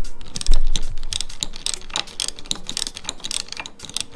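A 7mm socket ratchet clicking in quick, uneven runs as it is worked back and forth to tighten an M4 nut on a bolt.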